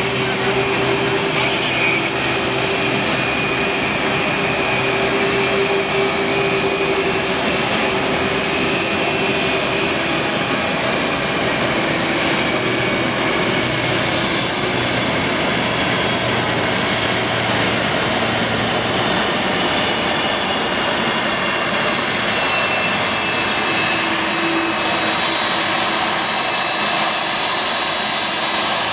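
Turbofan engines of taxiing jet airliners running at low taxi power: a steady, loud rush with a high turbine whine that slowly falls in pitch and grows stronger near the end.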